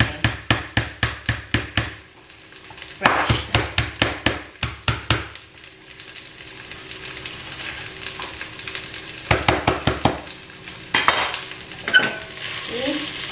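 Knife chopping lemongrass stalks on a cutting board, in two quick runs of about four chops a second, then a few single chops near the end, over the steady sizzle of garlic frying in a pan.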